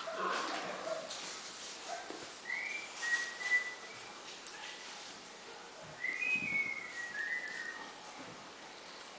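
Havanese puppies whimpering faintly: short, high, thin whines that rise and fall, a few about two and a half seconds in and another run from about six to eight seconds.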